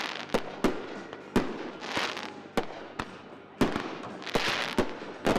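Aerial fireworks display: a string of about ten sharp bangs at uneven intervals, some close together, with spells of crackling hiss from bursting shells between them.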